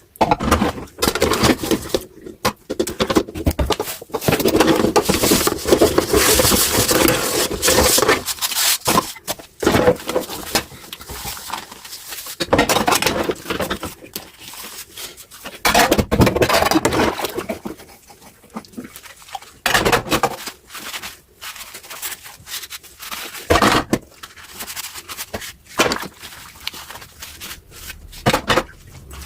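Dishes being washed by hand in a kitchen sink: tap water running in spells, with clinks and knocks of dishes and utensils between and over it.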